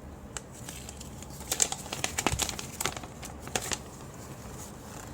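Paper crinkling and rustling as an instruction manual is handled: a burst of sharp crackles from about one and a half to nearly four seconds in.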